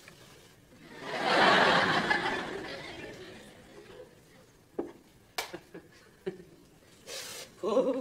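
Studio audience laughing, swelling about a second in and dying away over the next couple of seconds, followed by a few small sharp knocks.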